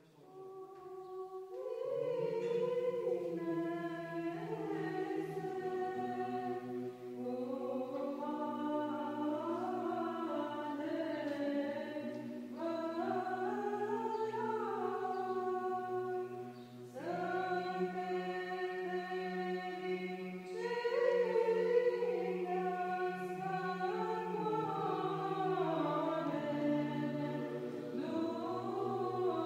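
Choir singing an unaccompanied chant, several voices moving over a low held note, with a short break about two-thirds of the way through.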